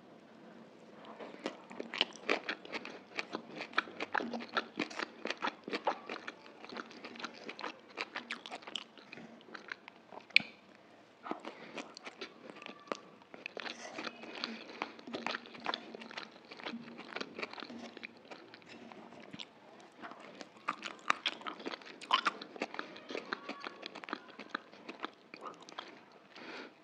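Crunchy chewing and biting of julienned bell pepper and carrot strips, with many sharp crunches close together.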